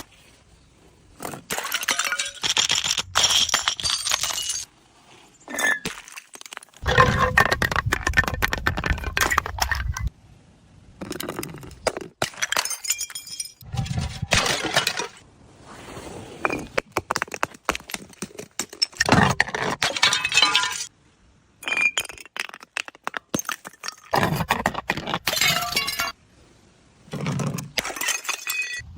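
Glass bottles being smashed and crushed, one after another: dense crackling breaks with clinking shards, in a string of short separate bursts with abrupt cuts between them.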